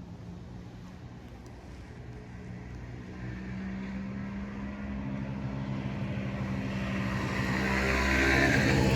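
A car approaching and passing close by: engine hum and tyre noise growing steadily louder, at their loudest near the end.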